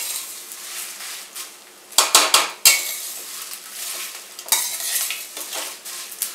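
Metal spatula stirring and scraping whole spices (coriander seeds, bay leaves, dried red chillies) around a stainless steel pan, with a few sharp clinks of metal on metal about two seconds in. Under it, a faint sizzle of the spices frying in a little oil over a very low flame.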